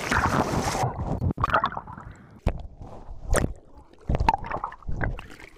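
Sea water splashing and sloshing around swimmers in choppy waves. A rushing wash of water cuts off suddenly about a second in, followed by irregular splashes and gurgles.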